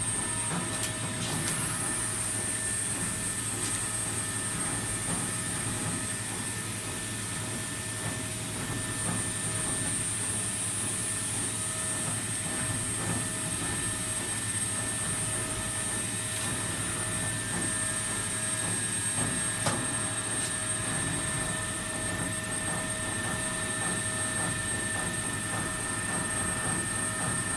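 PCB drilling machine running steadily, with a high-pitched spindle whine over a steady mechanical hum and a few sharp clicks; one of its tones steps up in pitch about two-thirds of the way through.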